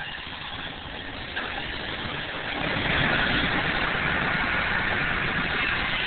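Mini-backhoe engine running and getting louder in two steps, about a second and a half in and again near three seconds, then holding steady at the higher level.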